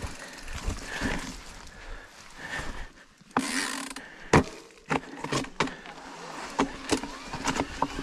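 Mountain bike ridden over rough trail: tyre noise on dirt with sharp knocks and rattles from the bike, and a short burst of rushing noise about three and a half seconds in.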